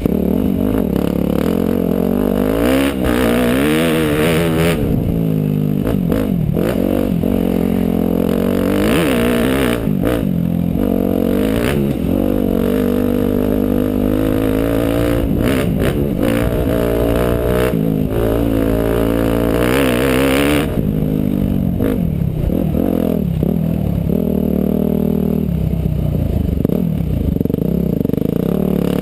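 Motorcycle engine running under riding load, its pitch rising and falling again and again as the throttle opens and closes, with stretches of added hiss over it.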